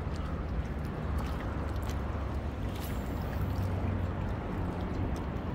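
Sea water washing steadily against shore rocks, an even rushing noise with a low rumble, with a few faint ticks over it.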